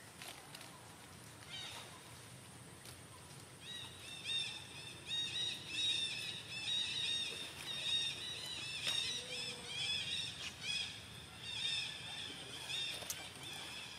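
Birds chirping: rapid, repeated high, short notes that start about four seconds in and keep going.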